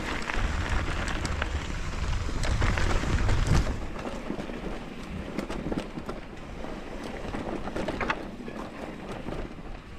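Wind rumbling on the microphone, with mountain bike tyres rolling over a dirt trail and small rattles and clicks from the bike. The wind rumble is heaviest for the first three and a half seconds, then eases.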